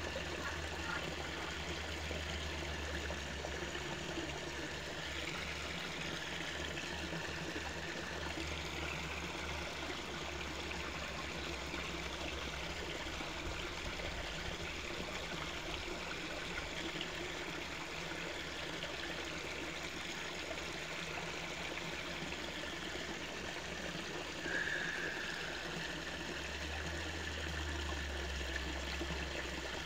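Dalia stream water flowing and trickling steadily, with some low rumble underneath. A short, louder, higher-pitched sound stands out late on.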